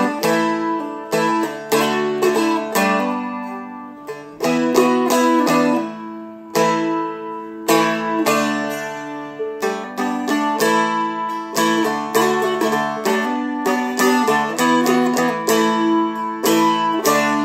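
Seagull Merlin, a four-string fretted dulcimer-style instrument, played with a pick: a run of chords with melody notes picked in among them, the strings ringing on between the strokes.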